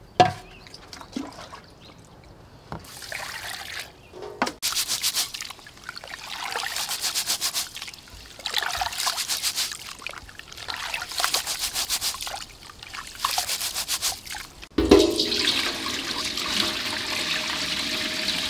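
Raw rice being washed by hand in a steel pot: hands rubbing and squeezing the wet grains in several quick, rhythmic bouts. About fifteen seconds in, a stream of water starts pouring steadily into the pot to rinse it.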